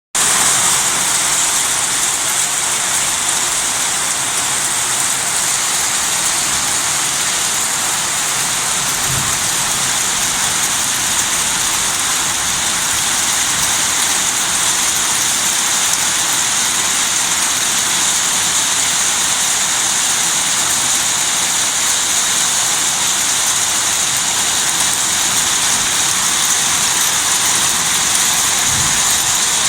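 Torrential water rushing, a loud steady sound that neither builds nor breaks, heaviest in the upper range.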